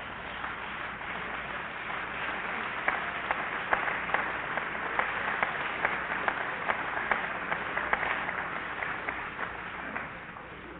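Assembly audience applauding, a dense patter of clapping with individual sharp claps standing out, which dies down near the end.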